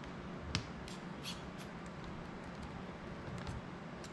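Light clicks and taps of a hex screwdriver and fingers working screws on a small FPV drone's frame and plastic prop guard, with one sharper click about half a second in and a few lighter ones after, over a faint steady hum.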